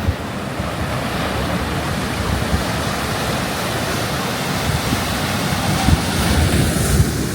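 Strong wind buffeting the microphone in irregular low gusts, over the steady wash of surf breaking on the shore.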